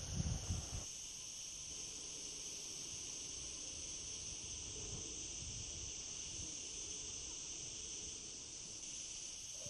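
Steady, high-pitched chirring of insects in a constant chorus. A few low thumps come in the first second.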